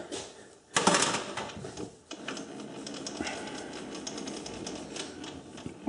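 Metal clunk on a South Bend metal lathe, then a steady light rattling and clicking as the cross slide and tool post are cranked back from the work.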